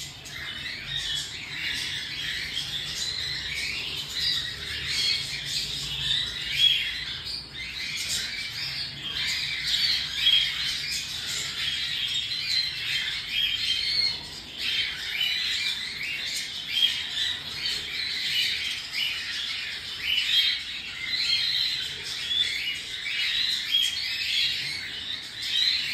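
Many cockatiels calling at once: a continuous, overlapping chatter of harsh squawks and chirps.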